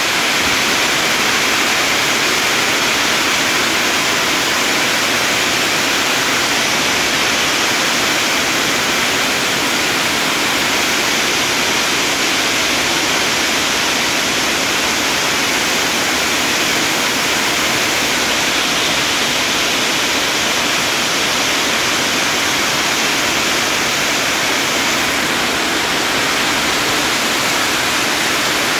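Hailstorm: hail and heavy rain pelting down, a dense, steady hiss that keeps up without a break.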